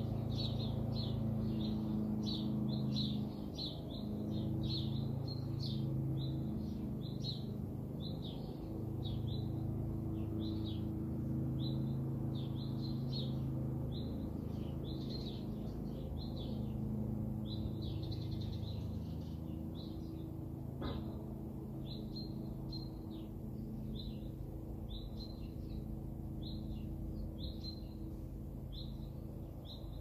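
Small birds chirping, short high chirps two or three a second without pause, over a low steady hum. A single sharp click about two-thirds of the way through.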